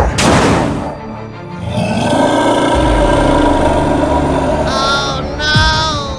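A heavy crash of a landing at the very start, then a long monster roar sound effect over background music. The roar is followed by two short, high cartoonish vocal sounds near the end.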